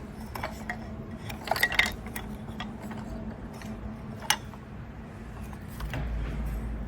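A few light clinks and knocks of small hard objects being handled, then a single sharp click about four seconds in, over a steady low hum. A low rumble rises near the end.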